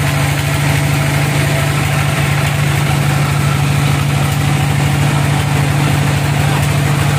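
The engine of a homemade bandsaw sawmill running steadily: a low, even hum with a fast regular pulse.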